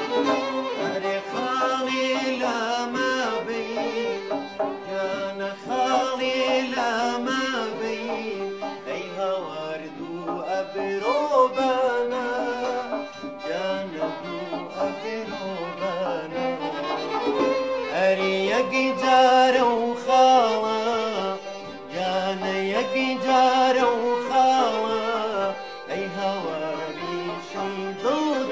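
Middle Eastern folk song: a man singing with violin accompaniment, the voice and fiddle sliding and ornamenting around the melody.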